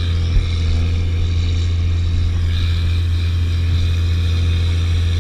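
Tracked snowcat running steadily as it tows a string of kayaks up a snow slope: a constant low engine drone with a steady hiss over it, and one brief bump under half a second in.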